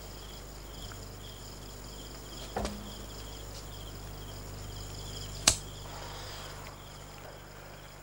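Crickets chirping, about two chirps a second, over a steady low hum. Two sharp clicks break in, one about two and a half seconds in and a louder one about five and a half seconds in.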